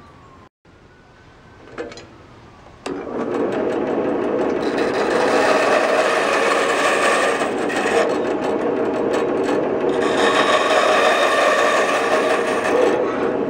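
Band saw cutting through a slab of black pipestone. After a small knock, a loud, steady, harsh cutting noise starts suddenly about three seconds in and continues.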